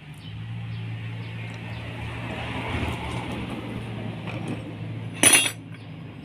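A steady low mechanical hum, like an engine running nearby, with a single sharp metallic clink about five seconds in.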